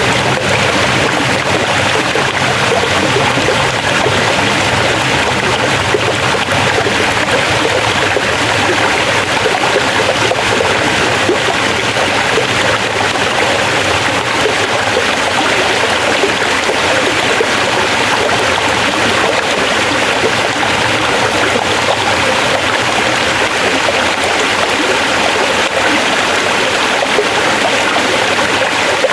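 Forest stream flowing over rocks, a steady dense rush and babble of water.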